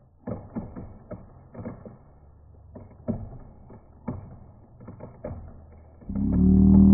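Irregular sharp knocks and cracks, several close together in the first second or two, then sparser. Guitar music comes in near the end.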